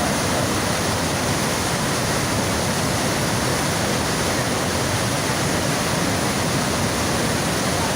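Niagara River rapids just above Niagara Falls: a steady, dense rush of white water with no let-up.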